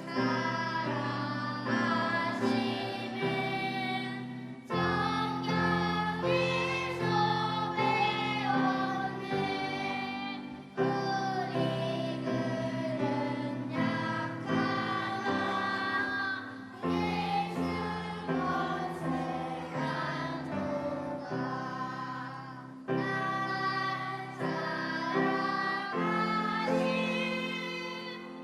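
Children's choir singing a hymn in unison over instrumental accompaniment, in phrases that start afresh about every six seconds.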